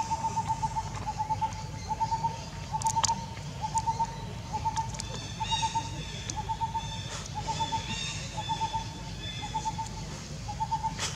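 A bird calling over and over: short pulsed notes on one steady pitch, about two a second. A higher, thinner call joins in a few times in the middle.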